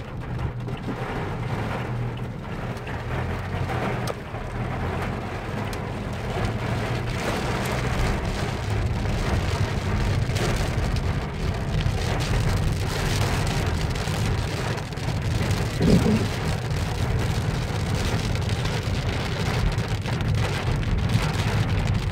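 Rain hitting a car's windshield, heard from inside the moving car over a steady low rumble of engine and road. A windshield wiper sweeps once about two-thirds of the way through.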